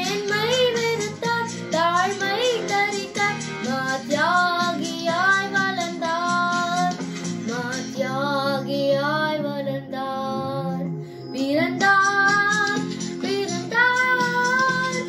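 A girl singing a slow song in long held notes with a wavering vibrato, over instrumental accompaniment.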